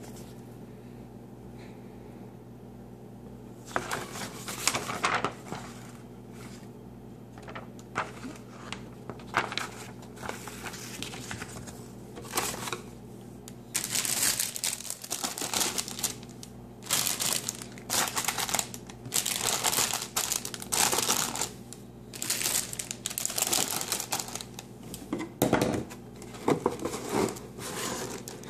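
Paper and cardboard being handled: the model kit's instruction manual and box rustle and crinkle in irregular bursts, starting about four seconds in, over a steady low hum.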